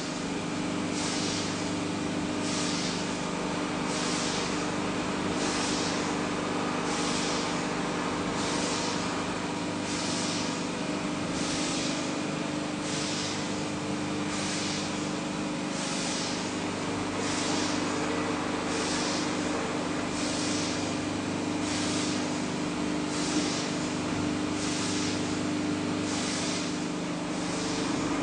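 Injection moulding machine for wax running, with a steady hum and a short hiss repeating evenly about every second and a half.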